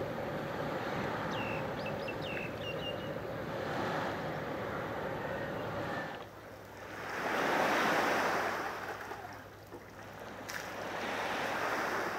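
Waterside outdoor ambience: a steady wash of water and air noise with a faint hum beneath it. A bird gives a quick run of high chirps about a second and a half in. Past the middle, a rushing swell of noise rises, peaks and fades away, and a smaller one follows near the end.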